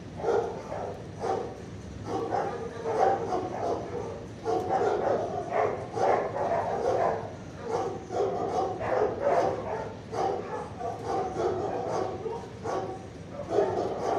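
Dogs in an animal shelter's kennels barking and yipping over and over, almost without a pause.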